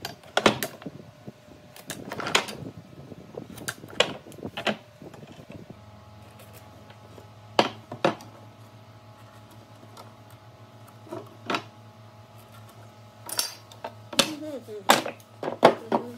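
Irregular sharp clicks and knocks of wood pieces and hand tools being handled, over a steady low hum.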